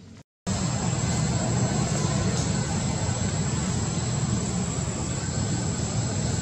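A loud, steady rumbling drone with a hiss above it, cutting in abruptly a moment after the start.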